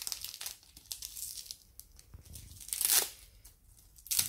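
Velcro strap of an action-camera wrist mount being pulled apart and pressed back, a few short rasping rips, the loudest about three seconds in.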